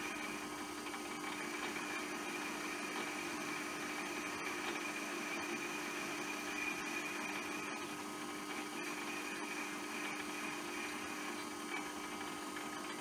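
Metal lathe running steadily while a carbide-insert tool turns a stainless steel rod: a constant motor and gear hum with a higher whine above it.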